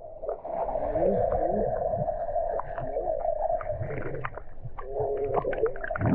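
Muffled underwater sound picked up by a camera submerged in the sea: gurgling and bubbling water with a steady dull hum and scattered clicks, and nothing bright or high-pitched.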